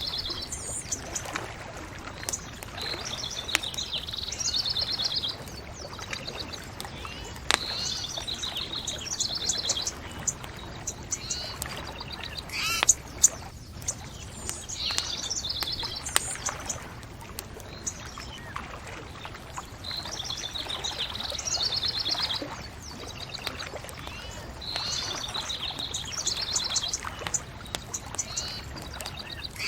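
A songbird repeating a short trilled phrase every few seconds, over a steady outdoor noise bed with scattered sharp pops from a crackling bonfire.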